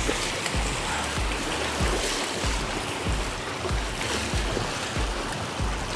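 Water splashing and sloshing as waders stride through rocky shallows, with a hooked trout thrashing at the surface, over repeated low thumps.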